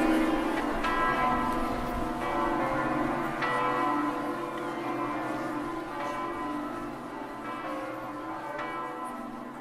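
Church bells ringing: notes of several pitches are struck one after another, each ringing on, and the whole sound fades out gradually.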